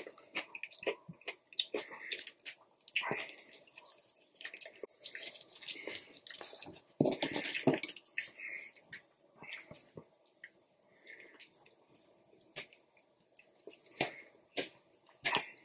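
Sauce squeezed from a small packet onto noodles, then wooden chopsticks stirring and lifting sticky chow mein close to the microphone: irregular wet squishing with light clicks, busiest around the middle.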